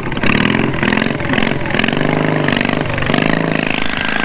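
Riding lawn mower engine running hard under load, its pitch rising and falling with the throttle as the mower drives through snow.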